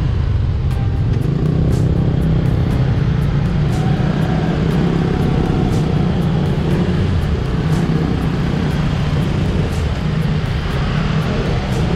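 Motorbike engine and surrounding city traffic, recorded from the bike itself, steady and loud.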